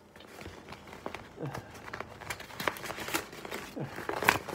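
A mail package being opened by hand: rustling and crinkling of the packaging with scattered small clicks, and a sharper click near the end.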